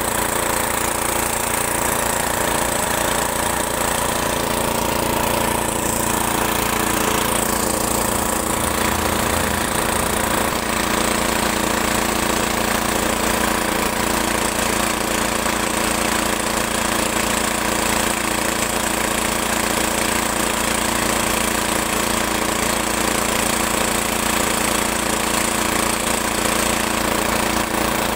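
A motor running steadily at an even speed, a constant mechanical hum that does not change.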